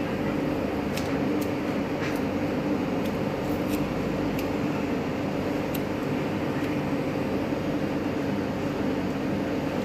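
Steady mechanical hum and hiss of running room equipment such as an air conditioner or fan, with a few faint light clicks.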